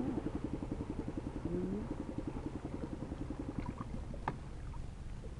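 A small engine running with an even pulsing beat, fading away over the first three seconds or so. A single sharp click comes a little after four seconds in.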